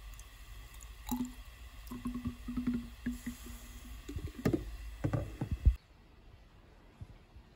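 Liquid being poured into a small narrow-necked bottle, gurgling and splashing unevenly. It cuts off abruptly about six seconds in.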